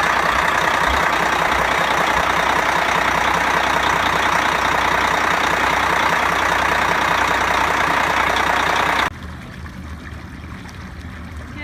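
Detroit Diesel Series 60 marine diesel engine running, loud and steady in the engine room, on its first run after new exhaust risers were fitted. About nine seconds in, the sound drops sharply to a quieter wash of water along the boat's hull.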